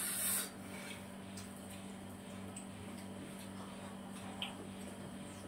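Quiet room tone with a steady low hum, a short hiss right at the start, and a few faint scattered ticks.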